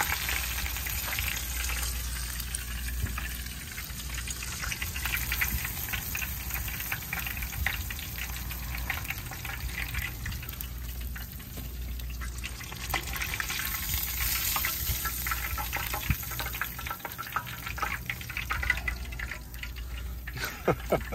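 Breaded chicken strips deep-frying in a pot of hot oil: a steady sizzling hiss with dense crackling.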